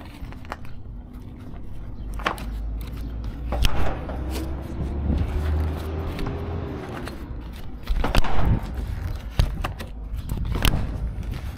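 Curtainsider trailer's metal strap buckles being worked open by gloved hands: several sharp metallic clacks, the loudest about 4 and 8 seconds in, with scraping of strap and tarpaulin. A steady low vehicle engine rumble runs underneath.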